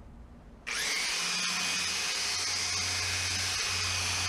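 Makita handheld narrow belt sander switched on about a second in, then running steadily with a high whine, unloaded and held in the air.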